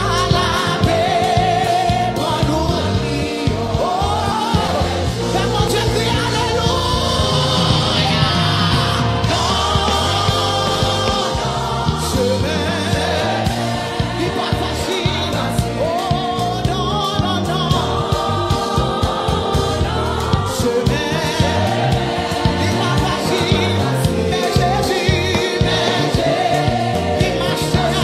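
Gospel hymn in Haitian Creole sung by a choir over a band, with a bass line and a steady beat.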